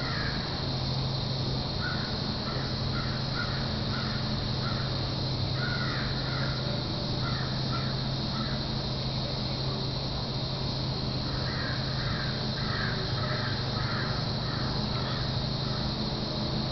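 Crows cawing in three bouts of quick, repeated caws, over a steady low hum.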